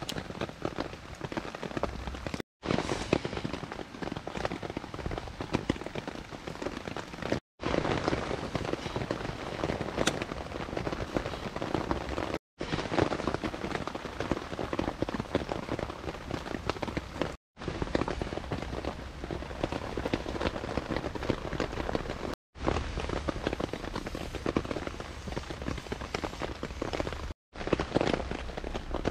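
Steady rain pattering on a tarp overhead, a dense crackle of drops. The sound cuts out for a split second about every five seconds.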